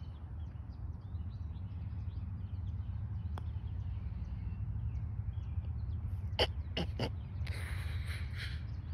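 Low steady rumble of wind on the microphone, with a single faint click of a putter striking a golf ball about three and a half seconds in. Three short, sharp knocks follow near the end.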